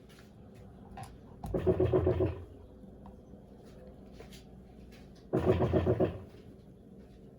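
Electrolux LAC16 top-loading washing machine in its wash cycle: two agitation strokes, each about a second long and a few seconds apart, churning the water and the load, with faint hum between them.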